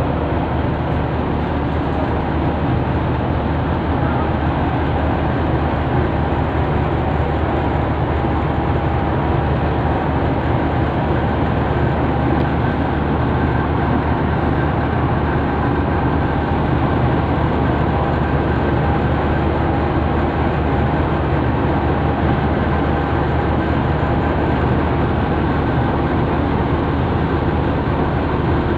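A boat's diesel engine running steadily, heard from on board: a low, even drone with a faint steady whine above it.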